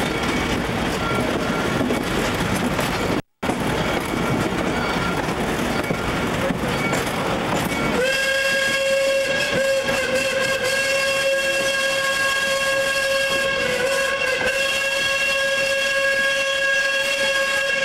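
Rolling noise of a moving passenger train heard from a coach, with a brief dropout about three seconds in. About eight seconds in, the steam whistle of Mitsubishi Type 80 steam locomotive No. 851 sounds and is held as one steady chord for about ten seconds.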